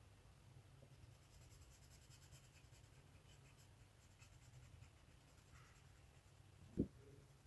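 Faint scratching of a coloured pencil shading on paper, over a low steady hum. A single short knock sounds near the end.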